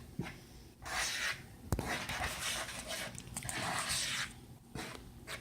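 A utensil stirring dry flour, baking powder and salt in a mixing bowl. It makes repeated swishing and scraping sounds, with one sharp knock against the bowl a little under two seconds in.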